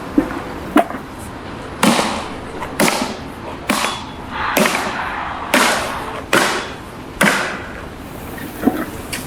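A series of seven heavy strikes, a little under a second apart, each ringing or smearing out briefly, after two sharp knocks in the first second.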